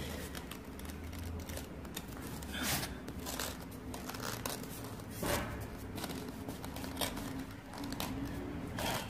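Cloth rubbing and wiping wet mortar across terracotta floor tiles, in irregular swishing strokes.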